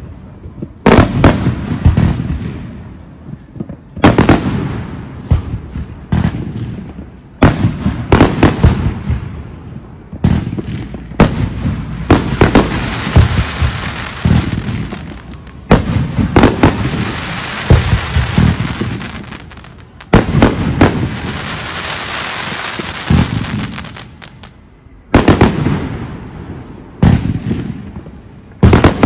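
Professional fireworks display: aerial shells bursting in loud bangs, often in quick clusters of two or three, each followed by a rolling echo. Through the middle a long stretch of dense crackling runs under the bursts.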